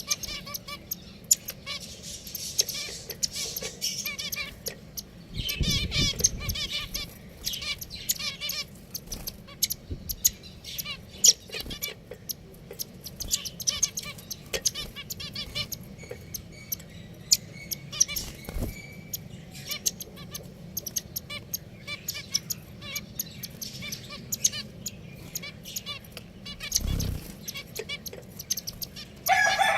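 Pet finches chirping and twittering in quick clusters of short notes, with scattered light clicks and a couple of low thumps. A rooster starts crowing right at the end.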